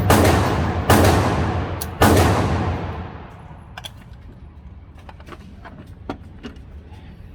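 AR-15 rifle firing three shots about a second apart, each with a long echoing decay. Fainter sharp pops follow in the second half.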